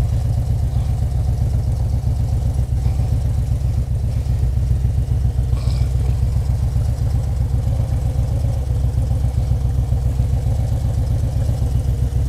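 Harley-Davidson touring motorcycle's V-twin engine running steadily at low revs as the bike rolls slowly.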